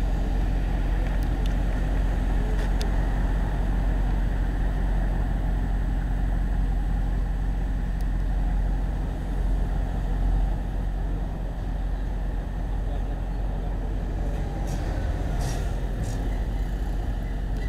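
Mercedes-Benz SLS AMG Roadster's V8 running steadily at idle, without revving.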